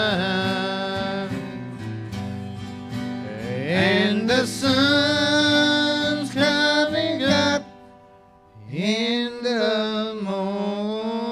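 Gospel song sung to acoustic guitar: long held, sliding vocal notes over steady strummed chords, with a brief drop-out about eight seconds in before the singing picks up again.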